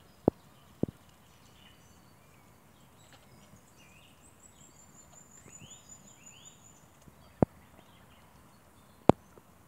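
Birds singing faintly in the background, with a high descending trill and short chirps through the middle. Over them come sharp clicks: three close together at the start, one later, and the loudest just before the end.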